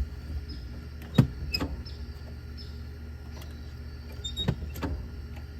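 Golf cart throttle linkage and cable worked by hand, giving two pairs of sharp metal clicks over a steady low hum. The rusted throttle cable binds so that its return spring is not enough to pull the throttle back.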